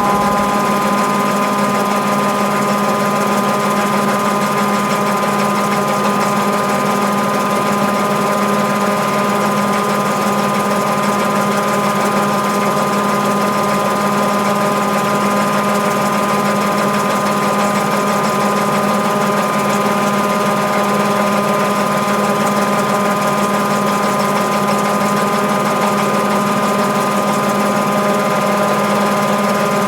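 Mabe Aqua 18 kg top-load washing machine in its spin cycle: the tub spinning with the drain pump running, a steady, unchanging mechanical hum. This is the normal spin, with the thermoactuator holding the gears engaged.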